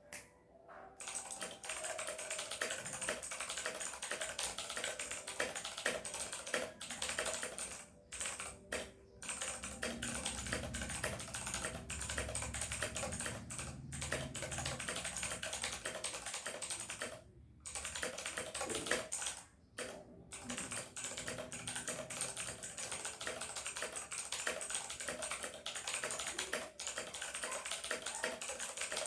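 Continuous fast typing on an E-YOOSO Z-11 mechanical keyboard: a dense stream of key clicks and keystrokes, broken by a few short pauses.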